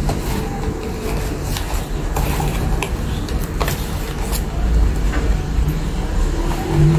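A low steady rumble throughout, with scattered light clicks and rustles as a doll is worked loose from its cardboard and plastic packaging.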